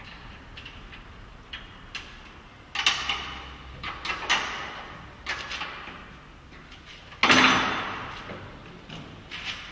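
Sheet-metal knocks and clanks of a car trunk lid being handled and test-fitted against the body panels. About seven seconds in there is one loud metallic clang that rings on for a couple of seconds.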